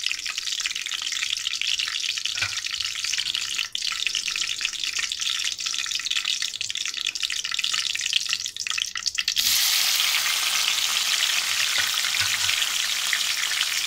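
Curry leaves sizzling and crackling in hot groundnut oil in a kadai, with scattered pops. About nine seconds in, chopped tomatoes go into the oil and the sizzle suddenly turns louder and denser.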